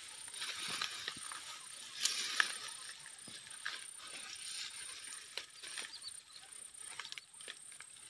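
Tall grass and dry stems rustling against someone crawling through them, with light irregular crackles and snaps, the sharpest at the start and about two seconds in.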